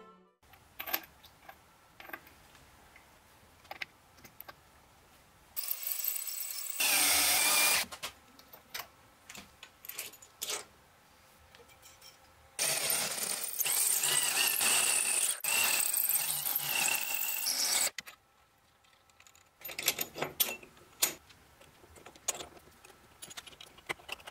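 Workshop sounds of metal machine parts being handled: scattered clicks and knocks, with two loud runs of a power tool. The first is short, about six seconds in; the second lasts about five seconds, around the middle.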